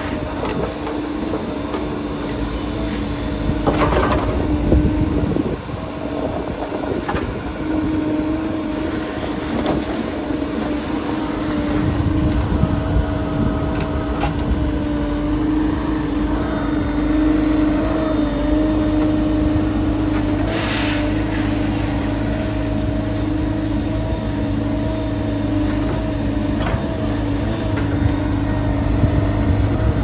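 JCB 214 backhoe loader's diesel engine running at a steady speed with an even hum, with a few short knocks and rattles from the machine.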